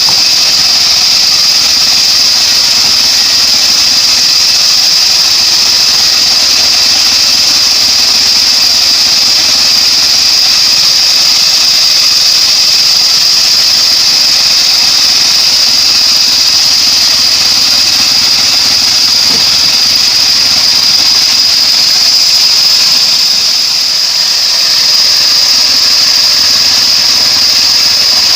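Homemade bandsaw sawmill running, its engine and band blade making a loud, steady noise with a strong high-pitched whine, easing slightly for a moment near the end.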